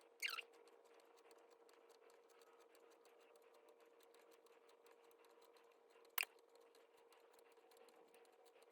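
Near silence with a faint steady hum, broken by two small sounds of a latch tool being worked on a knitting machine's metal needles. There is a short squeak falling in pitch right at the start, and a single sharp click about six seconds in.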